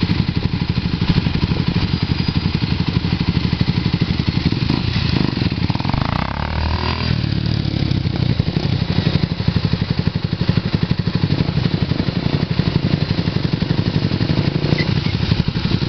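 Motorcycle engines running as riders manoeuvre at low speed, with a rapid, uneven pulsing throughout and a brief change in pitch about six seconds in.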